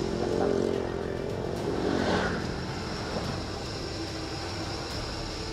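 Mountain bike coasting down a steep road: a steady rush of wind and tyre noise, with a brief swell about two seconds in.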